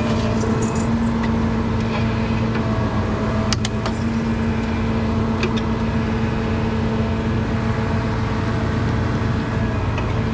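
Peterbilt 337 rotator tow truck's diesel engine running steadily with a constant hum while its hydraulic boom lifts a crashed SUV by chain out of a ditch. A few faint clicks about three and a half seconds in.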